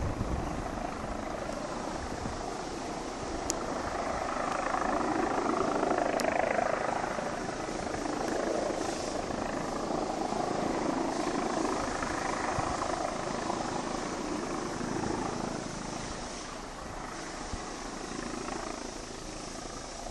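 Police helicopter hovering low overhead: steady rotor and engine noise, swelling a little a few seconds in and easing slightly near the end.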